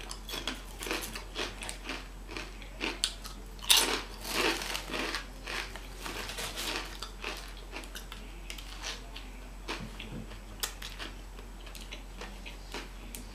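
Eating sounds: crunching and chewing crisp chips in a string of crackly crunches, the loudest about four seconds in, with rustling of sandwich paper as the food is handled.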